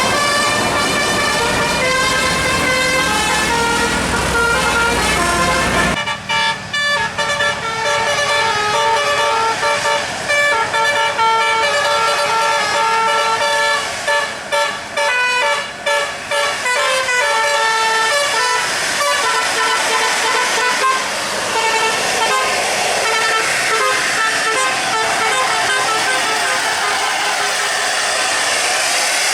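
Bus 'telolet' musical air horn playing a tune of held notes that step from pitch to pitch, with short breaks between phrases. A low rumble under the horn stops sharply about six seconds in.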